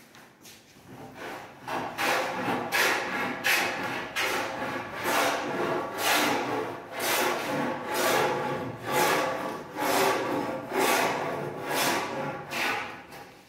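Repeated rasping strokes on a hard surface, about one a second, starting about a second and a half in, like a hand tool worked back and forth.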